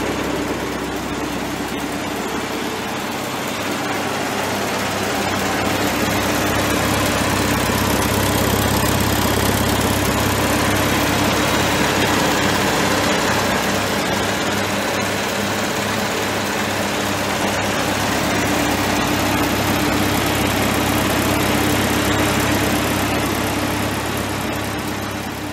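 Farmall Super A tractor's four-cylinder petrol engine idling steadily after a cold start.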